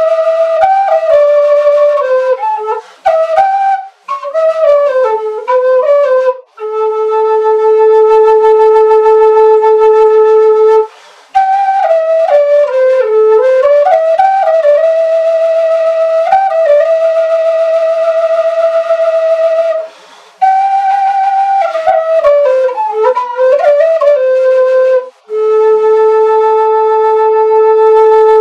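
A wooden Andean flute played solo. It plays a slow melody of ornamented, falling phrases, each ending on a long held low note, with short gaps between phrases.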